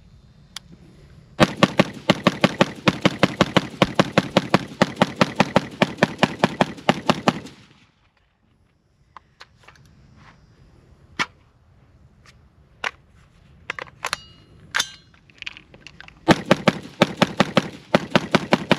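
Diamondback DB15 AR-15 rifle fired in a fast semi-automatic string, about five shots a second for some six seconds. Then come a few separate sharp metallic clicks and clacks of a magazine change. Rapid fire starts again near the end.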